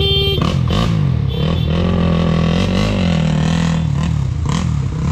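Dirt bike engines running and being revved, the engine note rising and falling several times in a row.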